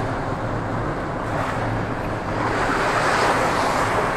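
Water splashing from a swimmer doing back crawl: pushing off, then kicking and windmilling arm strokes, the splashing growing louder about two seconds in. A steady low hum runs underneath.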